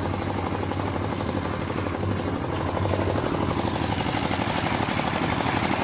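Two-wheel walking tractor's engine running steadily with a fast, even chug as it pulls its trailer.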